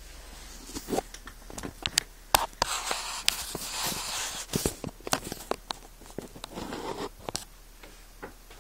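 Close rustling and scraping with a run of sharp clicks and knocks, densest in the middle: handling noise from a phone being shifted against cloth.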